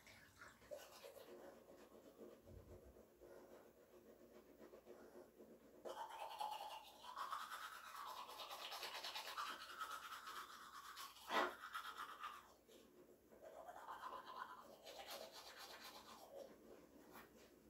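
Toothbrush scrubbing teeth in quick, faint strokes. It starts about six seconds in, breaks off briefly around twelve seconds, then resumes, with one sharp knock a little before the break.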